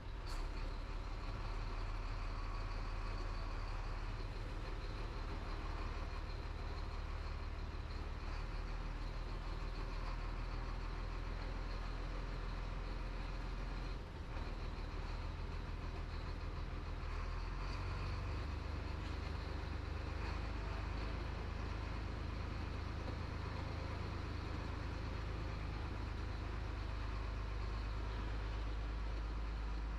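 Chenglong 375 tractor truck's diesel engine running at low speed, heard from inside the cab as a steady low drone. It dips briefly about fourteen seconds in, and its note shifts slightly around eighteen seconds.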